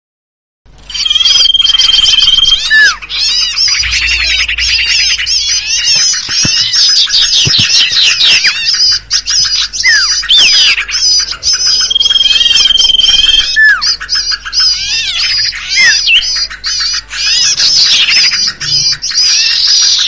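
Bird-lure recording for common ioras: a dense, loud chorus of small songbirds' rapid, overlapping chattering and chirping calls, starting suddenly about a second in. A long steady whistle and short falling whistles come twice, about eleven seconds apart, as the recording loops.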